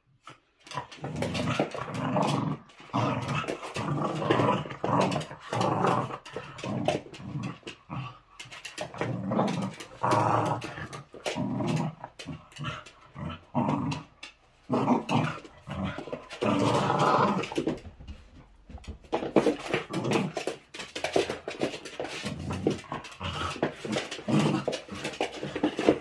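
Two small curly-coated dogs play-fighting, growling at each other in bouts a second or two long with brief pauses, mixed with short clicks and scuffles as they wrestle.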